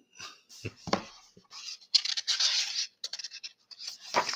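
Pages of a hardcover picture book being handled and turned: paper rustling and scraping in uneven bursts, the longest about two seconds in, with a few light knocks.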